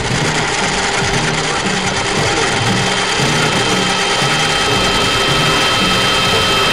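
Industrial noise music: a loud, dense wall of machine-like noise over a repeating low pulse, with steady high whistling tones that grow stronger toward the end.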